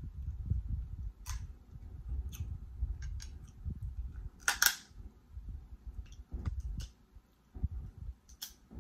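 Boiled lobster shell being cracked with fingers and teeth: scattered sharp snaps and crunches, the loudest about four and a half seconds in, over low handling and chewing noises close to the microphone.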